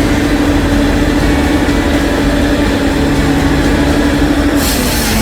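Heavy logging machine's engine running steadily, a constant low rumble under a steady hum, with a brief hiss near the end.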